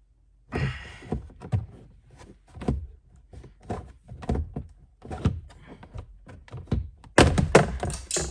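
Repeated knocks and thumps of plastic under-dash trim on a Ford F-150 being worked loose by hand, with a louder burst of clattering near the end.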